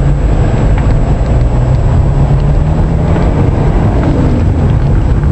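Car engine running and tyres rumbling over a rough dirt track, heard from inside the cabin. The engine hum rises slightly about two to three seconds in, then eases off.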